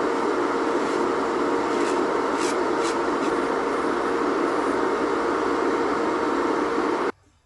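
Small electric nail-care machine (nail dust collector fan or electric nail file) running steadily with a faint hum, with a few brief scrapes about two to three seconds in; it switches off suddenly about seven seconds in.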